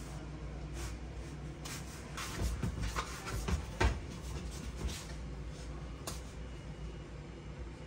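Hands rolling and pinching off a long rope of samsa dough on a floured wooden table: soft taps and pats of palms and dough on the wood, busiest around the middle, over a steady low hum.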